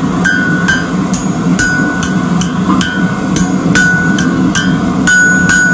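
Hand hammer striking red-hot rebar on an anvil, about two blows a second, each blow ringing off the anvil. The blows are bending a kink into the bar of a forged hook.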